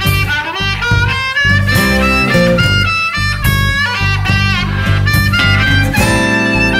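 Instrumental background music, a melody over a steady accompaniment.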